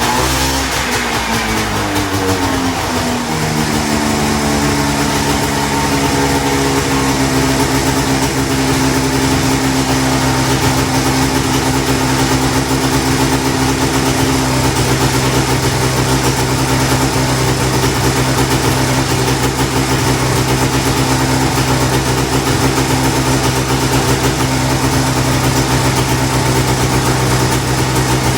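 Yamaha 540 snowmobile two-stroke engine dropping from a rev over the first few seconds, then idling steadily.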